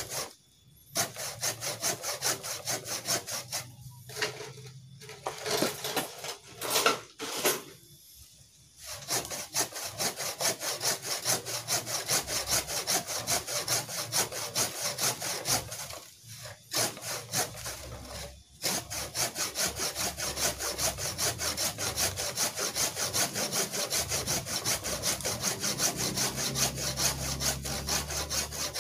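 Hand pruning saw cutting through a branch of a walikukun (Schoutenia ovata) bonsai: steady, even back-and-forth strokes of the blade in the wood, stopping briefly a few times.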